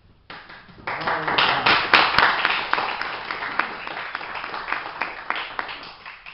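A small audience clapping: a dense patter of hand claps that starts about a second in and tails off near the end.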